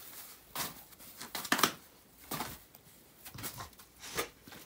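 Tissue paper rustling and crinkling as it is handled, in several short, irregular rustles.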